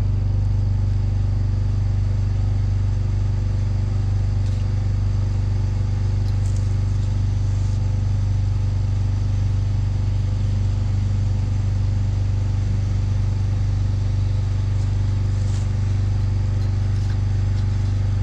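The fuel trailer's pull-start engine running steadily at a constant speed, giving an even low hum. A few faint light clicks are heard over it.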